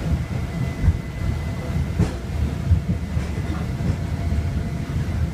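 Hong Kong Peak Tram, a cable-hauled funicular car, running on its rails, heard from inside the car as a steady low rumble with a few light knocks from the running gear.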